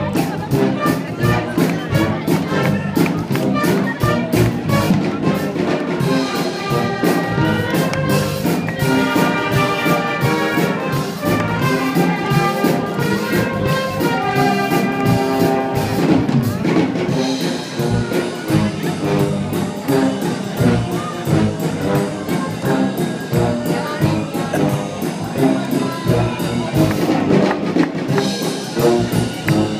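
Military brass band playing an instrumental passage: trumpets and other brass carrying the tune over a steady drum beat.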